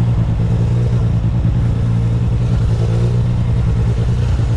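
Yamaha MT-09's inline-three engine running at low, steady revs, a continuous low rumble with no revving up or down.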